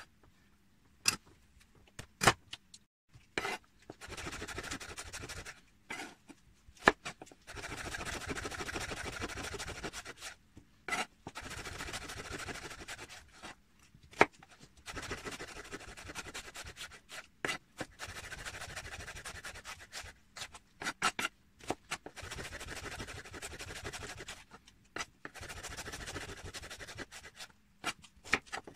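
Kitchen knife cutting food on a wooden chopping board, first through pink salmon and then through onions. There are sharp knocks of the blade on the board, then repeated rasping stretches of sawing strokes about two seconds long, with short pauses and clicks between them.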